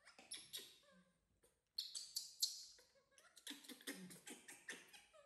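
Baby macaque giving several short, thin squeaking calls, each sliding in pitch, among soft rustling of cloth and handling.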